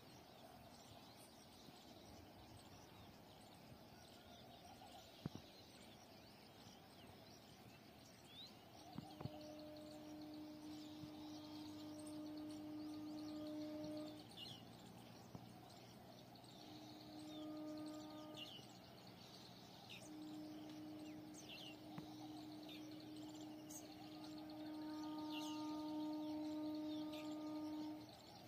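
Distant train horn sounding three steady blasts, the last the longest and loudest, as a train approaches. Birds chirp throughout.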